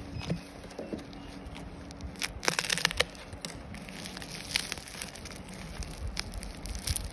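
Plastic courier mailer and a plastic-wrapped parcel being handled, crinkling and crackling in irregular bursts, the loudest cluster about two and a half to three seconds in.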